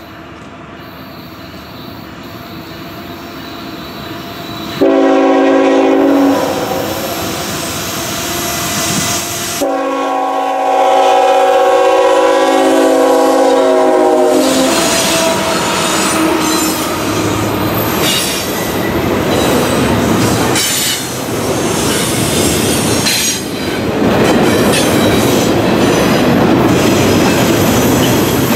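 Diesel locomotives of a CSX double-stack container train approaching and sounding the air horn twice, a short blast about five seconds in and a longer one about ten seconds in. The engines pass, and the container well cars follow with wheels clattering and squealing on the rails.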